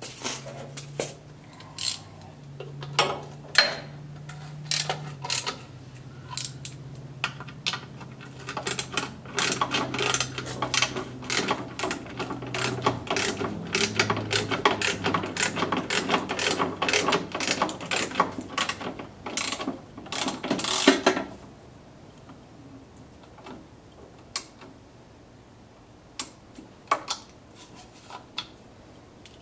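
Hand grease gun being worked on the compressor motor's grease fittings: quick, irregular metal clicking and clatter that comes thick and fast, then thins to a few scattered clicks about two thirds of the way through.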